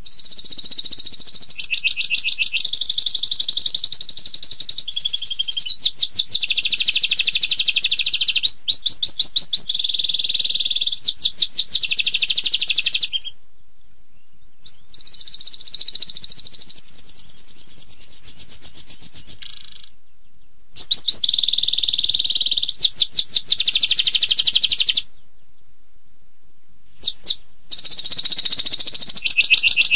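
Domestic canary singing a long, rapid song: fast trills and quick repeated high notes strung together in long phrases, with three short pauses.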